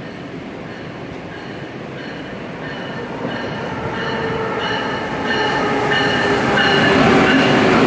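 Amtrak Siemens ACS-64 electric locomotive and its train rolling into the station, growing steadily louder as it comes closer, with a rumble and several steady whining tones that strengthen near the end.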